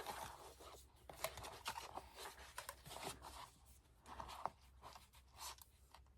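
Faint rustling of paper and thread with scattered small clicks and taps as a hand-stitched paper journal is handled.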